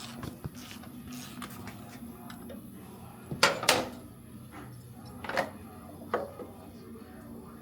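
A few sharp metallic clanks and knocks from tools and parts being handled during motorcycle service work, two close together about halfway through, then two more, over a steady low hum.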